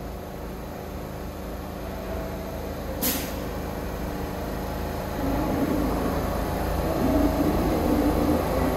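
New York City subway train approaching the station, a steady low rumble growing louder in the second half. A short, sharp hiss of air about three seconds in.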